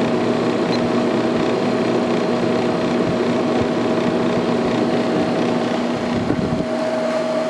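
Sharp 10,500 BTU window air conditioner running with its compressor on and the fan on high: a steady rush of air with two steady hum tones. The lowest rumble drops away near the end.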